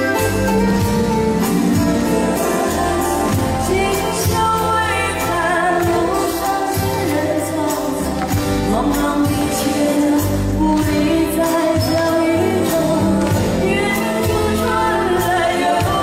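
A woman singing a Chinese-language song into a handheld microphone, live on stage with a band accompaniment and a steady bass underneath.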